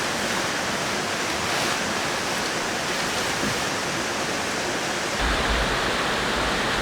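Mountain stream rushing steadily close by, an even wash of water noise. A low rumble joins about five seconds in.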